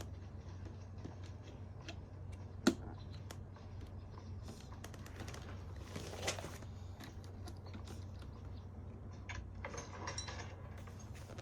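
Small plastic LEGO pieces clicking and rattling as they are handled, with one sharper click a few seconds in and a brief rustle midway, over a steady low hum.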